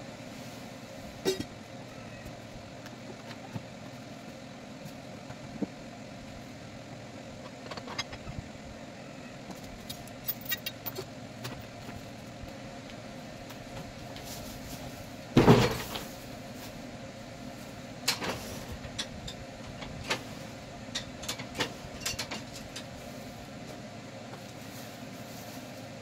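A sawmill log is turned on the carriage with a chain: scattered metal clanks of chain and dogs, and one heavy thump about halfway through as the log rolls over onto its new face. A steady mechanical hum, the mill's power unit idling, runs underneath.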